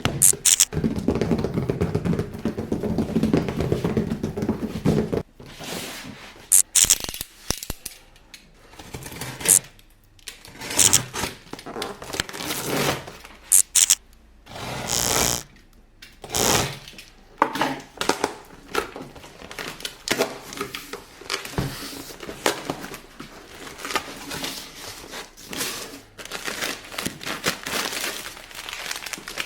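Hands handling and opening a mystery box of toy figures and its packaging. There are about five seconds of continuous scraping, then a string of short scrapes, taps and rustles.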